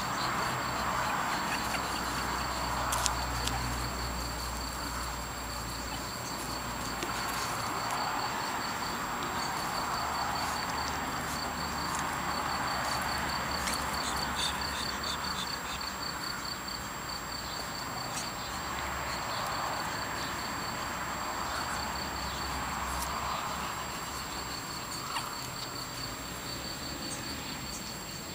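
Outdoor ambience: a steady, rapid insect trill over a background rush that swells and fades every few seconds.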